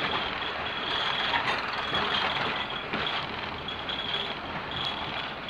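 Class 121 diesel railcar running along the line, heard from inside the passenger saloon: a steady rumble of engine and wheels on rail, with a high-pitched whine that keeps coming and going.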